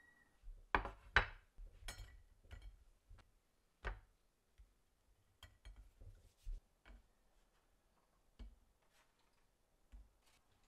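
A string of sharp knocks and clinks of a ceramic plate and food being set down on a wooden cutting board, the loudest two close together about a second in, then fainter taps.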